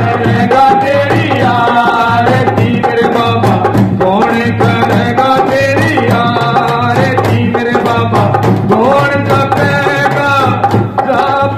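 Indian folk music: hand drums keep a steady beat under a continuous melody line.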